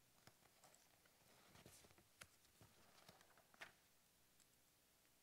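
Near silence: faint room tone with a few soft clicks and rustles scattered through it.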